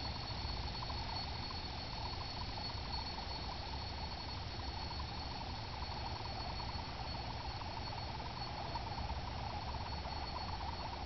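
StarGazer yo-yo spinning in a sleep at the end of its string, giving a steady whir.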